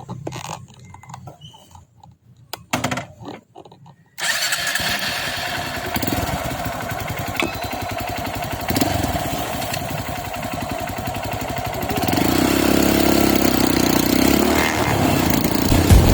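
A few faint clicks and knocks, then a Honda CRF motorcycle engine comes in abruptly about four seconds in and runs with a fast, even beat. It gets louder about twelve seconds in.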